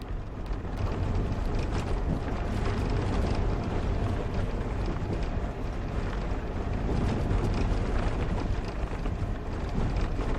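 A 1988 Citroen BX 19RD estate's 1.9-litre diesel engine running steadily as the car drives over a rough unsurfaced byway, with a low rumble and a stream of small knocks and rattles from the tyres and body on the uneven ground.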